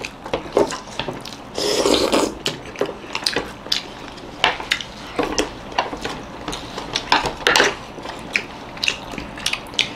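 Chopsticks clicking and tapping against ceramic plates and soup bowls while momos are picked up and dipped, with a short rushing noise about two seconds in.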